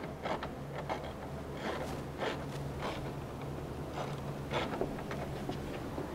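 Hand ratchet with an extension working a headlight mounting bolt: short, irregular clicks and scrapes of metal on metal, over a steady low hum.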